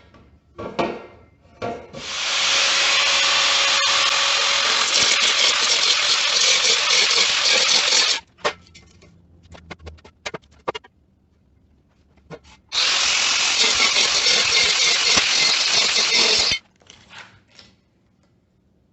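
A power tool working wood in two long runs, the first about six seconds and the second about four, each stopping abruptly. Scattered knocks and clicks fall between the runs.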